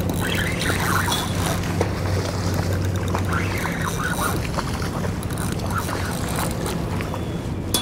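Steady low drone of a ferry's engine running, with a few short high squeaks near the start and again about three seconds in.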